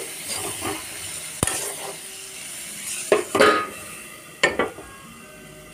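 Vegetables sizzling in an iron kadhai while a metal spatula scrapes and stirs, then a few clanks of metal on metal as a steel plate is set over the pan as a lid, about a second in, around three seconds in and again past four seconds.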